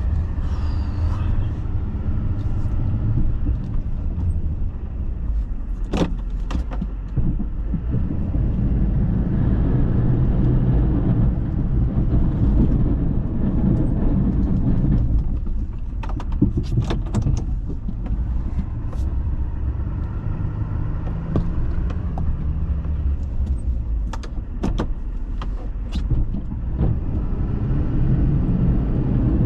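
GMC pickup truck engine running under load while plowing, its pitch drifting up and down with the throttle. Scattered sharp clicks and knocks ride over it, several in quick succession about halfway through.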